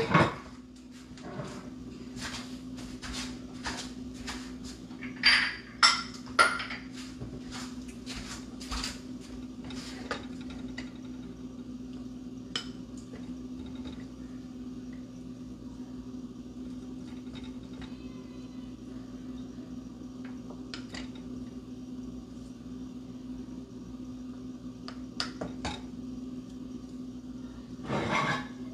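Kitchenware clattering as cooked rice is scooped out of a stainless steel pot into a small bowl: scattered knocks and scrapes against the pot and bowl, with a louder cluster about five to six seconds in and again near the end. A steady low hum runs underneath.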